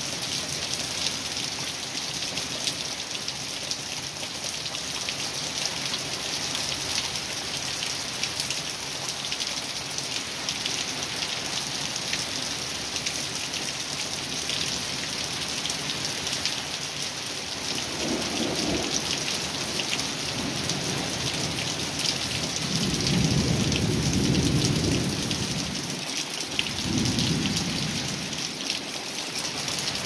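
Heavy rain falling steadily, with thunder rumbling in over it past the halfway mark: a first low roll, a louder, longer one a few seconds later, then shorter rolls near the end.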